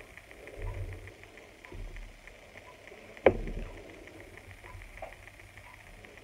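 Quiet handling noises of makeup things being picked up and set down, with one sharp click a little over three seconds in.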